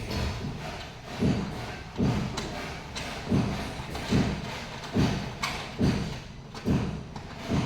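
A series of dull low thuds, about one a second, over a busy background.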